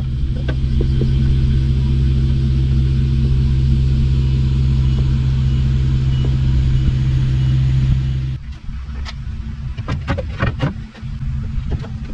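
Vehicle engine running with a steady low rumble, most likely the Daihatsu Hijet kei truck's 360cc two-stroke. About eight seconds in the rumble drops away and a run of knocks and clatters follows.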